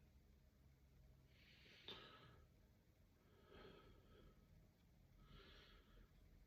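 Near silence with a person's faint breathing: three soft breaths about two seconds apart, and a tiny click about two seconds in.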